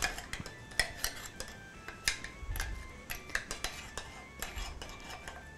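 A metal spoon scraping and knocking inside a small glass blender jar, clinking irregularly against the glass as thick green sauce is scraped out into a bowl.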